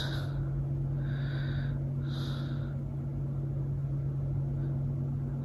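A steady low hum of a running appliance or fan. Over it come three soft breaths of a person asleep in bed, about a second apart in the first half.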